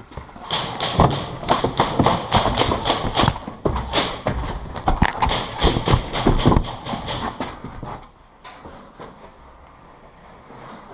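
Hurried footsteps crunching and knocking on a rubble-strewn concrete floor, several steps a second and irregular. They stop about eight seconds in, leaving only faint ticks and rustles.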